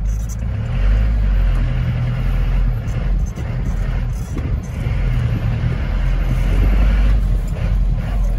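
Iveco TurboDaily 35.10 van's turbodiesel engine pulling hard, heard from inside the cab, while the driver works through the gears. The engine note drops briefly about three and four seconds in as gears are changed, then builds again under load.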